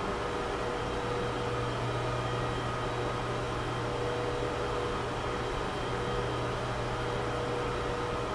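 Steady machine hum with an even hiss, unchanging throughout, of the kind made by a fan or air-handling unit.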